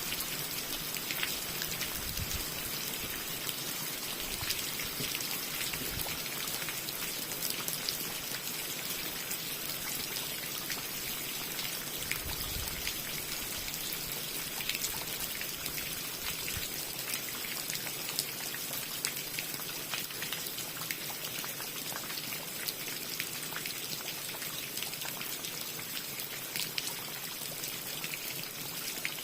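Steady rain falling, a continuous hiss dotted with many separate sharp drop hits.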